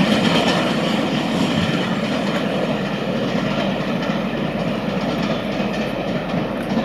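Loco-hauled passenger coaches rolling past at low speed, their wheels clattering over rail joints and pointwork, the sound slowly easing as the train draws away.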